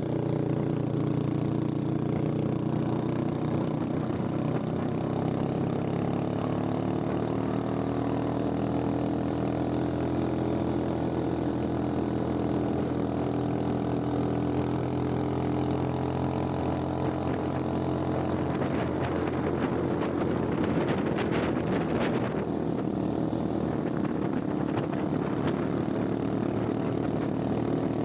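Motorcycle engine running steadily while riding, its pitch rising slowly for several seconds as it speeds up, with a few sharp clicks near the middle.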